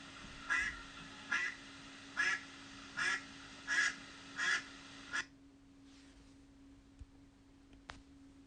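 A duck quacking: seven quacks in a steady series a little under a second apart, stopping about five seconds in.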